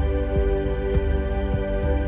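Background music with sustained, held tones over a low pulsing undertone.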